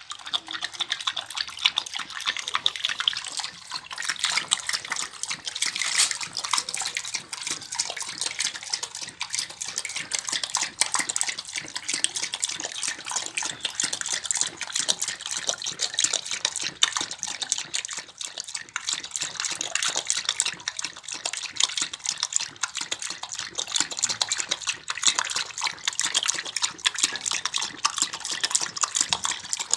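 A large bully-type dog lapping water from a metal pot with its tongue: rapid, continuous splashing laps with no pause, a thirsty dog taking a long drink.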